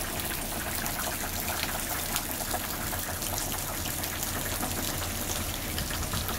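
Steady rain falling, an even hiss with many small drop ticks and water running.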